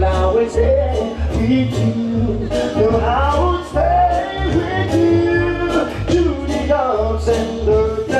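A Jamaican sound system playing a vocal record: a singer over heavy bass that pulses in a steady rhythm.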